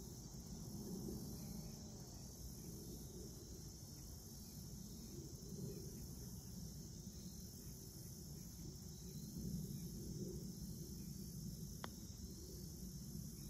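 Steady high-pitched insect chorus over a low, fluctuating outdoor rumble. About twelve seconds in comes a single faint, sharp click: a putter striking a golf ball.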